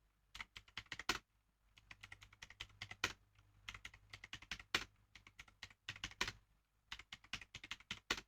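Mechanical keyboard being typed on at a steady typing pace: faint, irregular key clicks, several a second.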